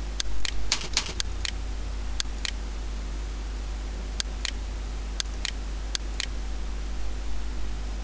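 Computer mouse button clicking, mostly in pairs about a quarter-second apart, with a quicker run of clicks about a second in, over a steady low hum.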